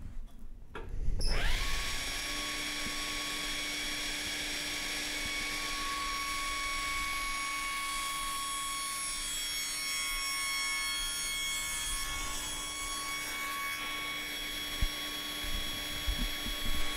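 Table saw motor starting about a second in, its whine rising to speed, then running steadily while the blade cuts a rebate through a small softwood test block.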